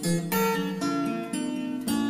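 Background music on acoustic guitar, strummed and picked.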